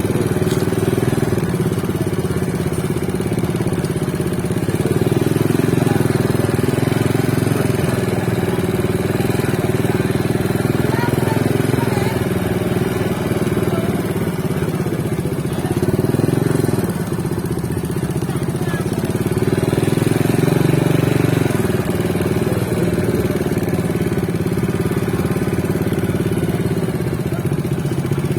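Motorcycle traffic: a steady low engine drone whose pitch rises and falls as bikes move past, with faint voices underneath.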